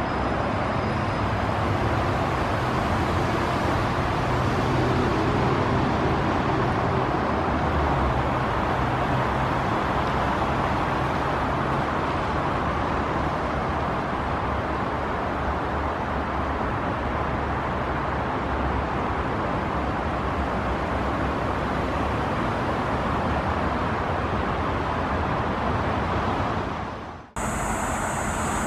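Steady noise of busy expressway traffic. It breaks off for a moment near the end and resumes with a high, thin steady whine added.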